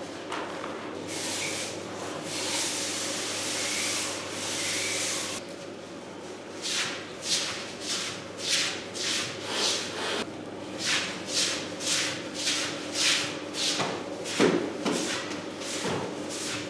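Gritty scraping on the sand-covered clay of a sumo practice ring: first a few seconds of long, drawn-out scraping, then a run of short rhythmic scrapes about two a second. A faint steady hum runs underneath.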